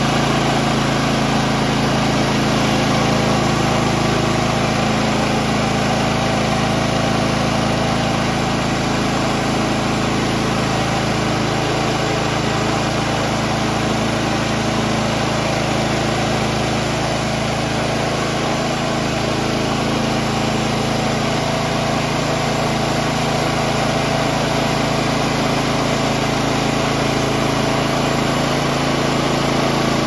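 Woodland Mills HM130 MAX portable bandsaw mill running steadily under load: its gas engine drives the band blade as it cuts lengthwise through a log.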